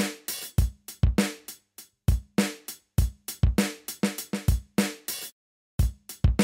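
Background music: an electronic drum beat of kick and snare with hi-hat over a low synth line, dropping out for about half a second near the end before picking up again.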